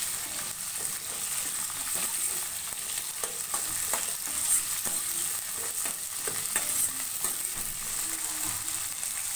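Chopped onions sizzling steadily in hot oil in a metal kadai, stirred with a steel spoon that scrapes and clinks against the pan at irregular moments.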